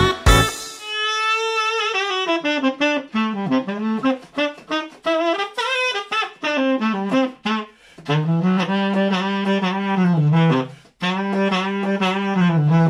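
The full band stops on a final hit, and an unaccompanied tenor saxophone plays a slow closing phrase that falls and rises, ending on two long low notes held with vibrato.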